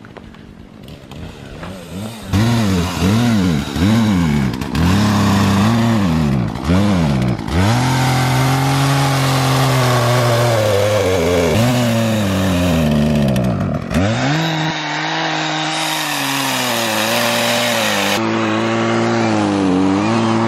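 Chainsaw revved in about five quick bursts, then held at speed cutting through a fallen log, its pitch sagging and recovering as the chain bites. Past the middle it settles into a steadier, lower drone.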